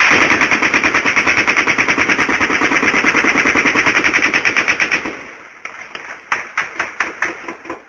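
Heavy automatic gunfire: one sustained burst of rapid shots, about a dozen a second, lasting about five seconds, then scattered separate shots.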